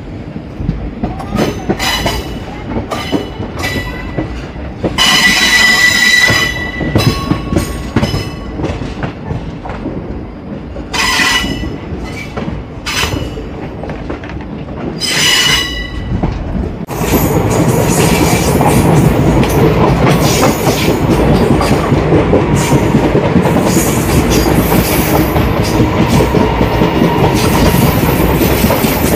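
An ICF passenger coach of a moving express train: wheels rattling over the track, with several brief high squeals in the first half. About seventeen seconds in, the noise jumps suddenly to a much louder, steady rush and stays that way.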